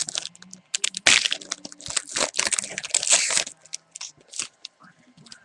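Foil wrapper of a basketball trading-card pack crinkling and tearing as it is opened by hand. There is a dense run of crackling from about a second in to past the middle, then a few scattered crinkles.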